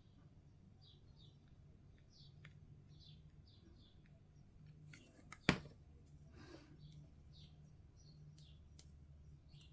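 Quiet handling of small plastic miniature parts at a desk: faint small ticks and scrapes, with one sharp click about halfway through.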